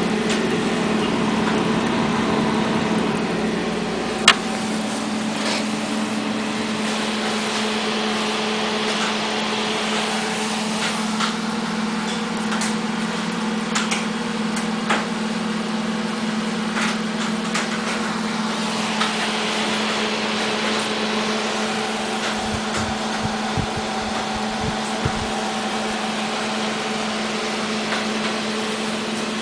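Fans and pump of a water-cooled desktop computer running with a steady hum and a strong low drone, with occasional small clicks and a few low knocks later on.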